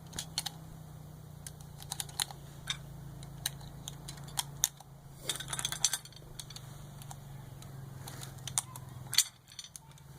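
Scattered light clicks and taps at irregular intervals, a short cluster of them about five and a half seconds in, over a steady low hum; small handling noises, with no gunshots.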